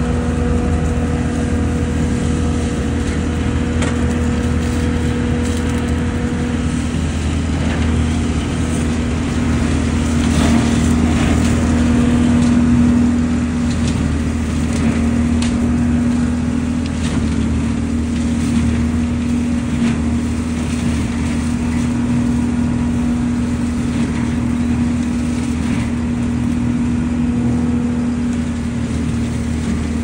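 ODB LCT650 truck-mounted leaf vacuum running steadily, its hose sucking in raked dry leaves with a rustling crackle, slightly louder about ten to thirteen seconds in.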